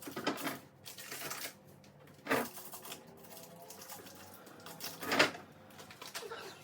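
Handling noise from clearing out a fridge: plastic food containers and packaging being knocked and set down, with several sharp clacks, the loudest two about two and five seconds in, between softer rustling.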